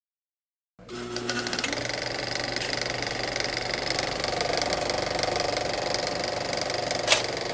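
Film projector running: a steady mechanical clatter with a low hum, starting about a second in, with one sharp click near the end.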